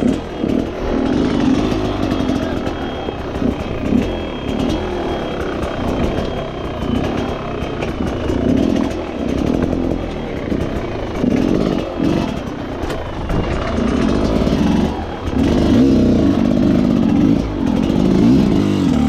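Dirt bike engine revving up and down over and over, its pitch rising and falling every second or two as the throttle is worked, as when riding a rough track.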